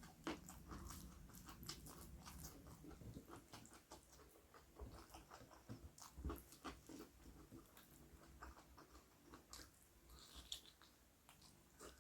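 Faint, close chewing and biting of food, with many small mouth clicks and smacks.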